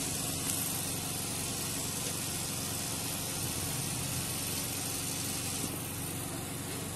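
A steady mechanical hum with a hiss, running evenly without a break; the hiss turns a little duller near the end.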